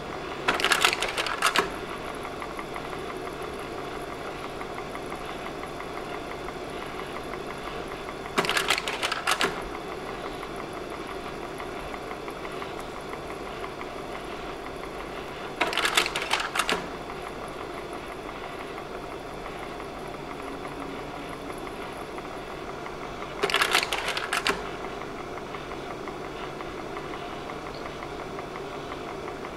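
Slide projector running, its cooling fan humming steadily, with the slide-change mechanism clattering four times, about every seven and a half seconds; each change is a short double clack as one slide goes out and the next drops in.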